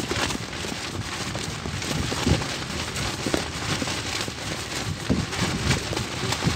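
Wind buffeting the microphone in irregular low gusts over a steady hiss.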